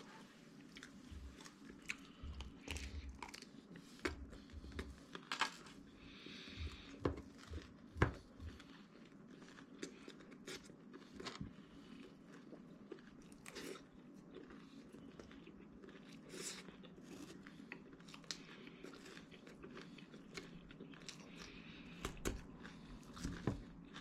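A person chewing and biting food, with irregular crunching clicks that are louder and more frequent in the first half.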